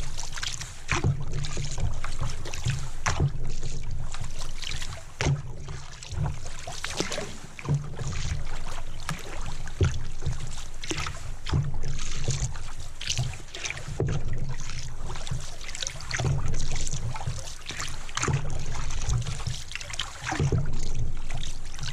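Canoe being paddled, heard through a GoPro mounted on the boat: water rushing along the hull, a low rumble of hull vibration carried through the camera mount, and frequent sharp knocks, typical of the paddle bumping the gunwale.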